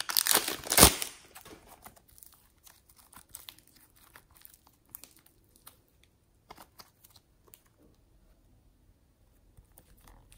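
Plastic piping bag crinkling as hands squeeze it, loudest in the first second, followed by scattered faint crinkles and small ticks.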